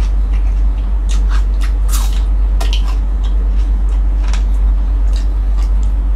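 Close-up eating sounds: wet chewing and lip smacks, with scattered short clicks, over a steady low hum.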